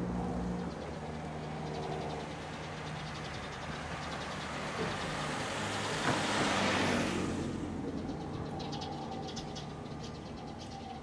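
Road traffic beside a tram line: a motor vehicle passes close about six seconds in, rising and fading as a whoosh over a steady low hum. Faint, rapid high chirping comes in near the end.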